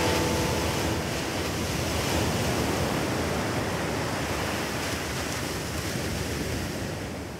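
Ocean surf: a steady wash of waves that fades out gradually toward the end.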